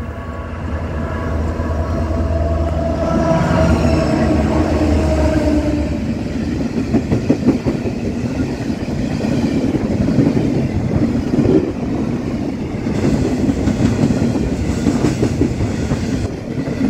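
Two EMD SD70ACe diesel locomotives at the head of a fast intermodal freight train run past, their engine note dropping in pitch as they go by. A steady, rapid rattle and wheel clatter of container flat wagons rolling over the rails follows.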